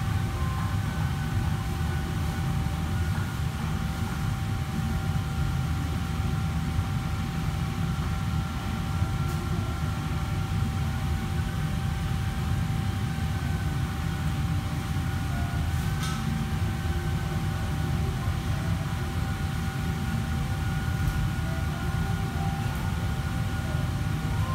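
Steady low machine rumble with a constant high whine over it, the running fans and equipment of a restaurant kitchen, with a few faint clicks.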